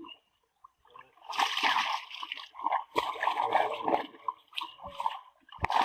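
Pond water splashing and sloshing in several irregular bursts of about a second each, after a brief quiet start.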